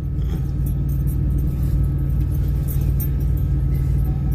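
Steady low rumble of a truck's engine and road noise, heard from inside the cab.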